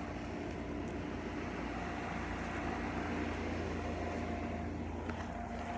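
Outdoor air-conditioner condenser unit running: a steady machine hum with a few steady tones.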